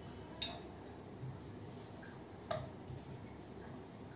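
Wooden rolling pin rolling out dough on a steel rolling board, faint, with two light knocks, about half a second in and again about two and a half seconds in.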